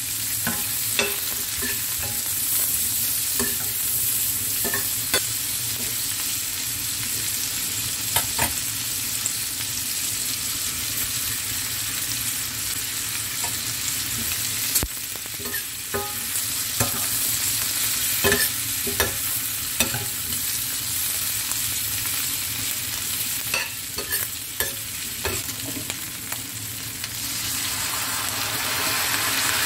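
Bell peppers and egg sizzling in a hot stainless-steel frying pan, stirred with a metal spoon that clicks and scrapes against the pan every so often. Near the end a dark sauce is poured in and the sizzle grows louder.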